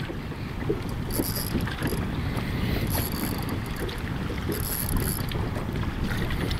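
Wind buffeting the microphone on an open boat, a steady low rumble, with a few brief high hisses.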